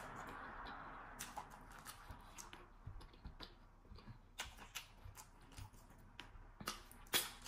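Faint, wet eating sounds from eating okra soup and fufu by hand: chewing and lip smacking, with fingers scraping the last of the soup off the plate. Scattered irregular clicks.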